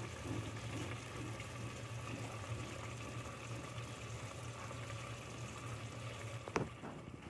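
A pot of vegetables in a little water simmering on the hob: a steady bubbling hiss over a low hum. A single sharp click comes about six and a half seconds in.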